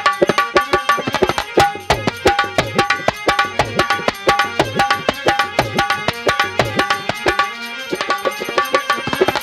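Instrumental folk-music passage: a fast, steady hand-drum rhythm with a short repeating melodic phrase over it, no voice.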